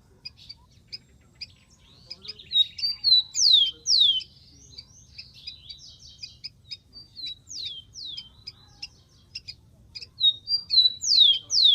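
Rufous-collared sparrow singing: three times, a pair of loud downslurred whistles, the first followed by a short buzzy trill, over a steady run of short high chips.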